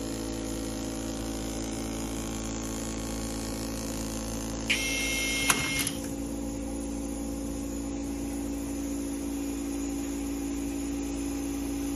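Steady low hum throughout; about five seconds in, the TM robot arm's electric screwdriver runs for about a second with a high whine, with a sharp click near the end.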